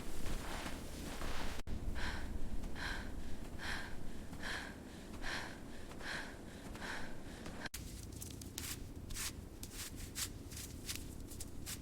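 Crunching steps in cold snow, each with a short squeak, coming evenly about one every second. After a cut, quicker and more irregular crunching in snow.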